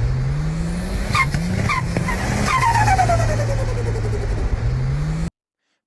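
Turbocharged car engine revving: the engine note climbs, drops and climbs again, with a high turbo whistle that slides down in pitch as the revs fall and a few short sharp chirps a little over a second in. The sound cuts off suddenly near the end.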